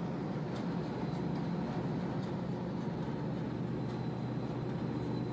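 1L532 vertical turning lathe running steadily while cutting a radius, its two servo-driven axes feeding together under interpolation. It gives an even low machine hum with a faint steady high tone.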